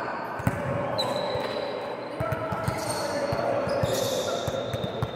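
Volleyballs being hit and bouncing on a hard court floor in a sports hall, making scattered irregular thuds, with players' voices murmuring in the background.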